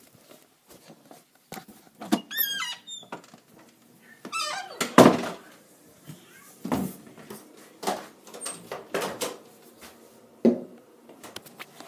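Handling and footstep noise from a handheld camera being carried through a house, with several dull thumps and a short high squeak about two seconds in.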